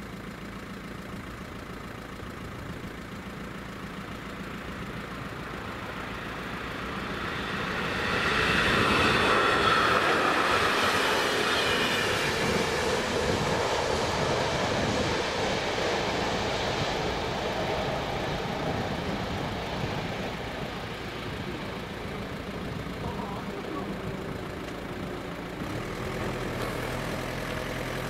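A train passing over a level crossing, growing louder about eight seconds in with a rumble and a ringing ride-over of the wheels, then fading away over the next ten seconds or so.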